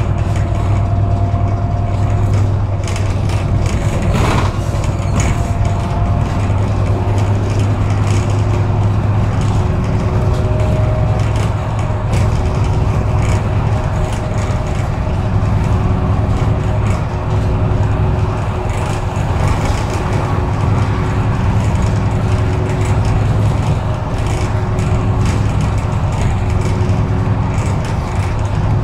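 City bus heard from inside the cabin: a steady low engine and road rumble with a faint hum, scattered rattles, and one sharp knock about four seconds in.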